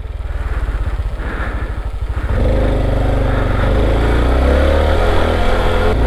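Honda CT125's single-cylinder four-stroke engine puttering at low revs, then opened up at about two seconds in and pulling steadily at a higher, louder pitch.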